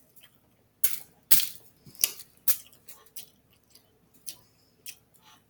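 Wet chewing and mouth smacks of a person eating close to the microphone, in irregular short bursts.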